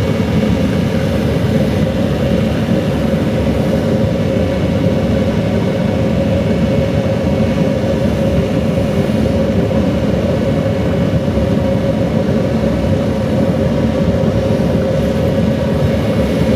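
An electric power tool running steadily, a constant low rumble with a steady hum over it.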